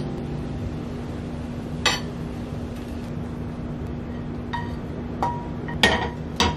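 Frying pan and spatula clinking against a ceramic plate as scrambled eggs are scraped out onto it: about five short, sharp clinks spread apart, the loudest two near the end.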